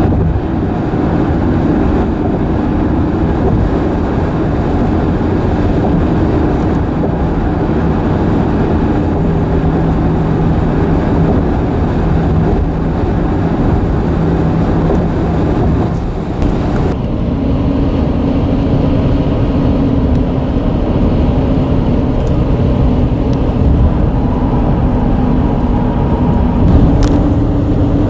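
Car tyres crossing a road bridge deck, making a steady droning hum over a heavy low rumble. The pitch of the hum shifts about two-thirds of the way through.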